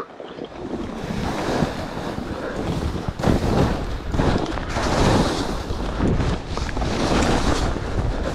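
Skis sliding and scraping over snow in repeated surges, roughly one a second, mixed with wind rumbling on the GoPro's microphone.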